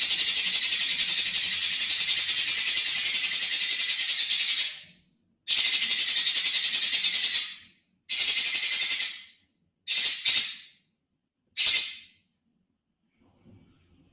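Lovebird giving a harsh, rasping, rattling trill, the rough song it is kept for. One long unbroken stretch of about five seconds is followed by a string of shorter bursts, each briefer, ending about twelve seconds in.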